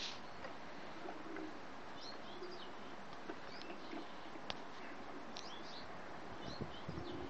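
Caged greenfinches chirping in short high calls every second or so, with pigeons cooing low in the background and a single sharp click about four and a half seconds in.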